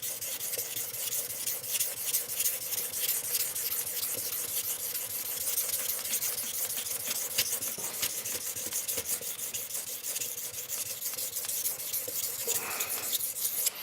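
Steel knife edge (CPM-M4 blade) being stroked repeatedly back and forth on a wet 20 micron diamond sharpening plate. It makes a steady gritty scraping with a faint ringing pitch underneath.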